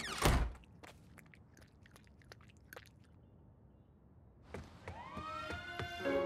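A quick falling whoosh at the start, then a stretch of near quiet with faint ticks. About four and a half seconds in, a siren-like wail comes in, rising in pitch and then holding, over steady tones.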